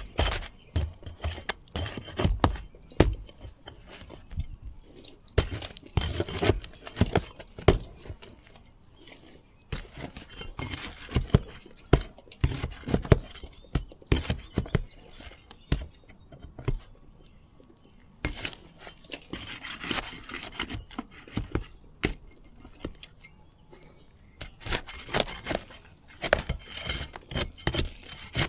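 Asphalt roof shingles being pried loose from their seal strips: irregular bursts of sharp clicks, crackles and scrapes, in clusters with short pauses between.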